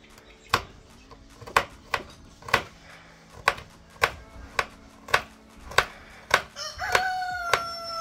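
Knife chopping garlic on a cutting board, sharp even strokes about two a second. A rooster crows near the end, one long held call.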